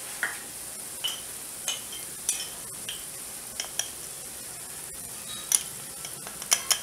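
Onions and garlic frying in a steel pot, a steady faint sizzle, with sharp light clinks against the pot about once a second and several in quick succession near the end, as spice powders are tipped in.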